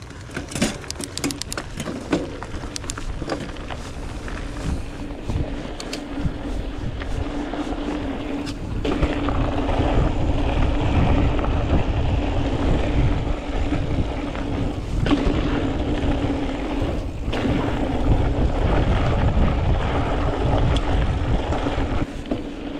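Hardtail mountain bike riding a dirt trail: rattling knocks over rough ground at first, then a louder steady rush of tyres and wind on the microphone with a constant hum as speed builds.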